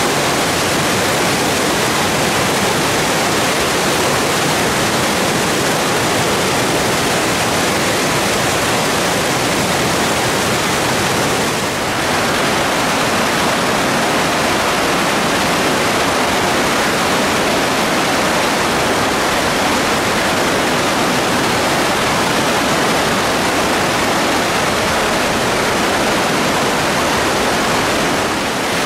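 Whitewater rapids of a fast glacier-fed river rushing over boulders: a loud, steady rush of water, dipping briefly about halfway through.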